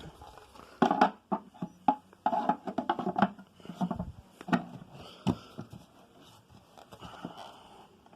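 Plastic parts of a Hoover Twin Chamber bagless vacuum being handled: an uneven series of clicks and knocks as the dust cup and filter housing are taken apart and fitted.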